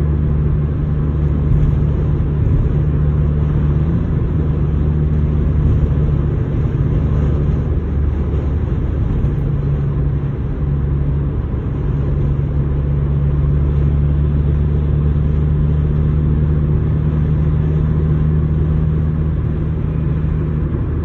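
Steady road and wind noise inside a car cabin at highway speed: a low rumble with a constant drone underneath.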